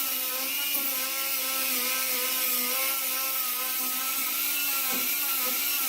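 Right-angle die grinder with a 120-grit sanding disc running against a steel bolt-cutter arm, removing scratches: a steady whine with a hiss of abrasion, its pitch wavering slightly and dipping briefly about five seconds in.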